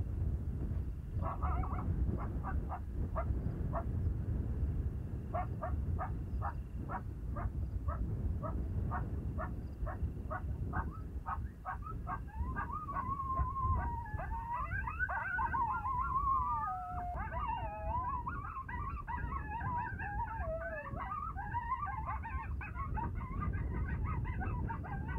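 Electronic predator caller playing recorded coyote vocalizations: a long string of short yips that come faster and faster, then wavering, sliding howls and yips like a group of coyotes calling. A steady low wind rumble on the microphone lies underneath.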